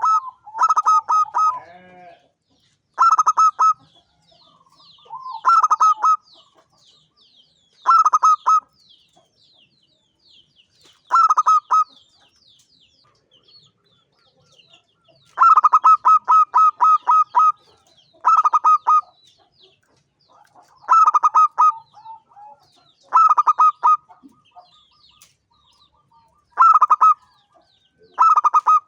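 Zebra dove (perkutut) singing: about a dozen short phrases of rapid, staccato cooing notes, one every two to three seconds, with one longer phrase about halfway through. Faint high chirping of small birds sounds between the phrases.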